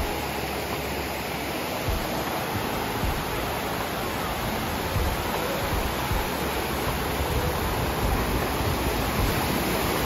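Shallow mountain stream rushing and splashing over rocks in small cascades, a steady full rushing sound, with a few brief low thumps.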